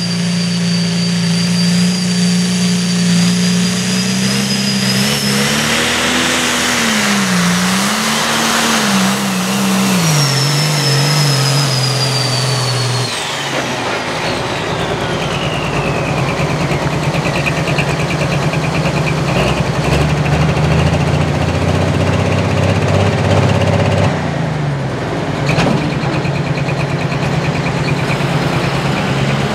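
John Deere 4450 limited pro stock pulling tractor's turbocharged diesel running at full throttle under load, with a high turbo whistle over it; the engine pitch dips and rises a few times mid-pull. About thirteen seconds in the throttle comes off: the turbo whine winds down and the engine settles to a lower, rough idle.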